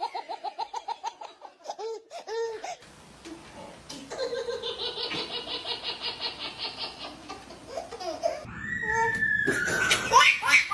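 Laughter sound effects: several different laughs one after another, each a run of quick repeated 'ha' pulses, the laugh changing about three seconds in and again near the end.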